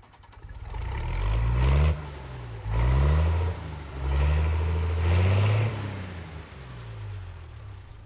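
An engine revving up and down, its pitch rising and falling with each rev; three loud revs come in the first six seconds, then it runs lower and quieter.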